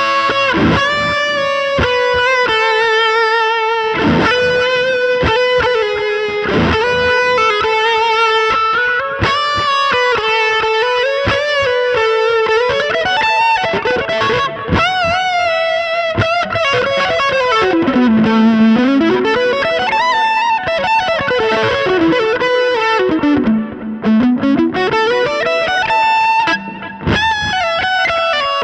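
Gretsch G5421 Jet Club electric guitar played through an HX Stomp effects unit with distortion: a lead line of held notes with vibrato, and twice in the second half a long slide down in pitch and back up.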